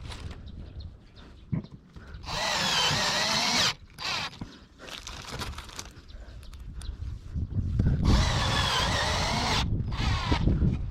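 A power drill runs in two short bursts, each about a second and a half, its whine wavering in pitch as the trigger is worked.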